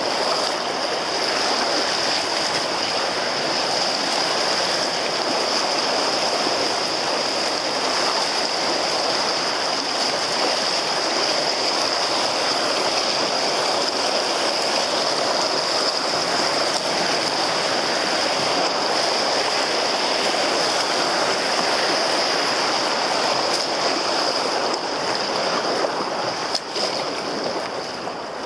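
Fast-flowing river water rushing around an open canoe's hull as it rides choppy standing waves, a steady rushing noise.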